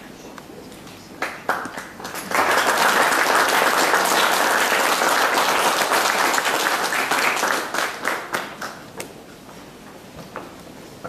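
An audience applauding. A few scattered claps swell into full applause about two seconds in, which holds for about five seconds and then thins out into a few last claps.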